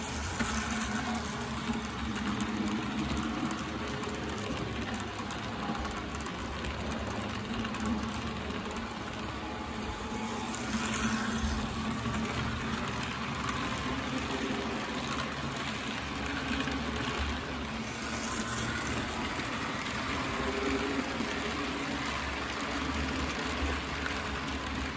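Model passenger train running around the layout: a steady rattle of wheels on the track with a low motor hum, swelling a few times as the train passes close.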